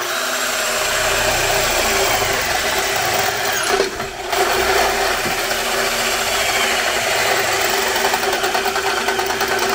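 Cordless drill running under load, its 9 mm bit boring through aluminium roof-rack panel. It is steady apart from a brief pause about four seconds in, then carries on drilling.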